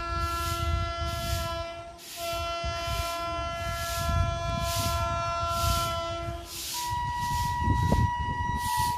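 Horn of an approaching Indian Railways electric locomotive: two long blasts of a multi-note chord, the second held about four seconds, then a higher single-note blast near the end. A low rumble runs underneath.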